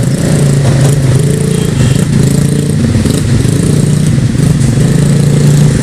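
An engine running steadily at close range, its low pitch wavering slightly.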